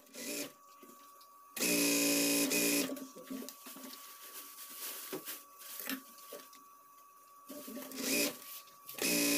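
Industrial sewing machine stitching in short bursts: a run of just over a second starting about one and a half seconds in, and another starting near the end. Softer handling of the fabric comes between the runs.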